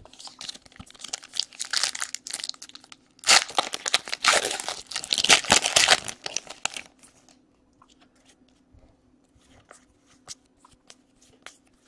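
Foil wrapper of a trading-card pack being torn open and crinkled, loudest in a run of ripping about three to seven seconds in. After that only faint taps as the cards are handled.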